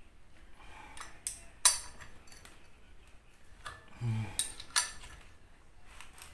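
A few sharp metallic clicks and clinks of hand tools against the camshaft timing pulley and cylinder head as the pulley is turned by hand, the loudest about one and a half seconds in.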